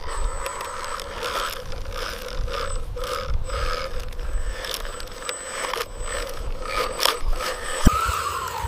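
Small electric motor and plastic gears of a radio-controlled construction vehicle whining, with a wavering pitch and many small clicks and rattles.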